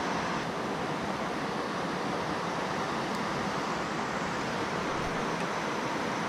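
Steady rushing of a small river waterfall, an even unbroken noise.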